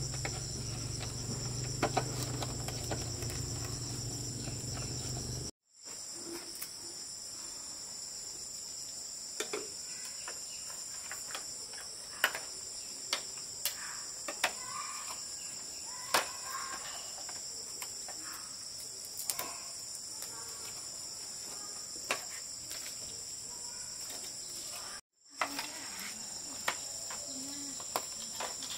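A steady high-pitched insect chorus, crickets or similar, with scattered sharp clicks and knocks over it. A low hum sits underneath for the first few seconds, and the sound drops out twice for an instant.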